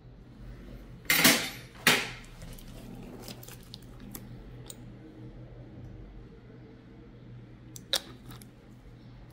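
Metal podiatry instruments being handled and set down: two short clatters about a second in, a few light clicks, and a sharp click near the end, over a steady low hum.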